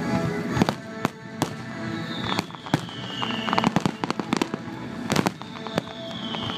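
Fireworks going off: a run of sharp bangs, with two whistles that fall in pitch about two seconds in and again near the end. Music plays underneath.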